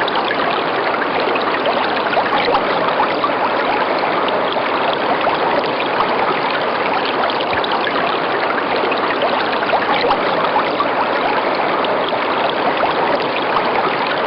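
River water running steadily, a constant rushing with fine splashing and trickling.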